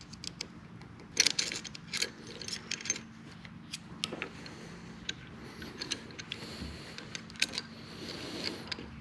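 Small steel parts clicking and clinking against each other as a gear and its fittings are worked onto the lead-screw shaft inside a lathe's two-speed tailstock gearbox. The taps come irregularly, thickest between about one and three seconds in.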